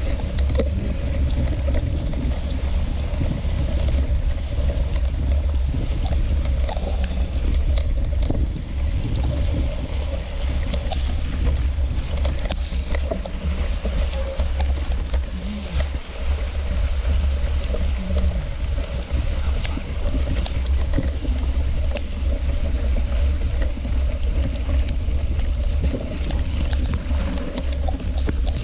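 Steady wind buffeting and rumble on an action camera's microphone while a mountain bike rides a muddy, rough forest trail, with scattered small knocks and rattles from the bike.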